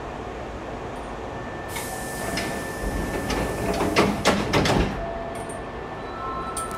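Sliding passenger doors of a Hankyu 5300-series train closing: a rushing hiss about two seconds in, then a quick run of knocks as the doors shut, about four seconds in.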